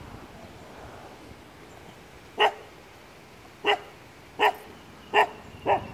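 A dog barking: five short, loud barks, starting a little over two seconds in and coming at uneven intervals of about half a second to a second and a quarter.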